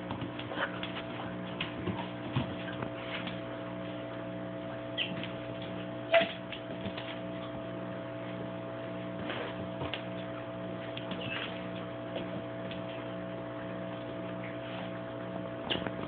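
Steady electrical hum, with one low tone pulsing on and off about twice a second, and scattered light clicks and taps; the sharpest click comes about six seconds in.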